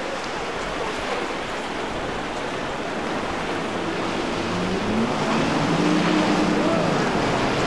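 Center-console boat running at speed: a steady rush of hull spray and wake, with the hum of its outboard engine coming up and growing louder over the last few seconds.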